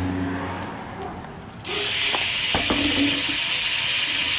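BMX rear hub freewheeling as the wheel spins, its pawls buzzing in a dense, rapid ratchet that starts suddenly about a second and a half in and holds steady, with a few light knocks.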